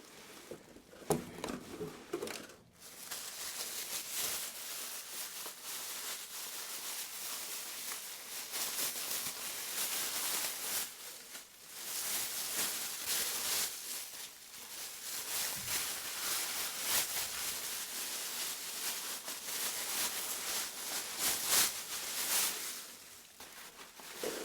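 Rustling and crinkling as a guitar gig bag and its packaging are handled and unwrapped, going on almost without a break, with a sharp click about a second in.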